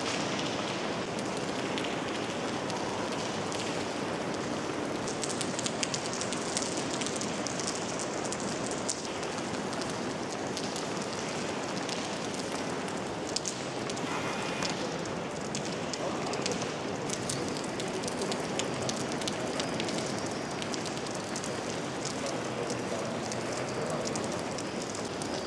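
Steady rain pattering, with many scattered sharp drips ticking over it, thickest a few seconds in and again in the second half.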